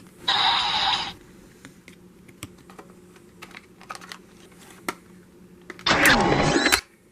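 Two short, loud electronic sound effects from a transformation-belt sound demo, one just after the start and a longer, fuller one near the end. Scattered sharp clicks like keyboard taps fall in between.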